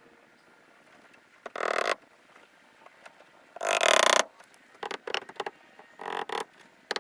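Frogs croaking in short, pulsed calls, about five in all, the loudest near the middle.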